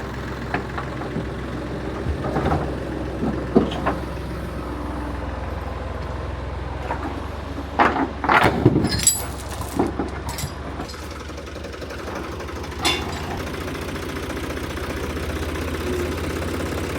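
An engine idling steadily, with scattered sharp clanks and knocks of work on metal. About halfway through comes a quick run of loud knocks, then one more a few seconds later.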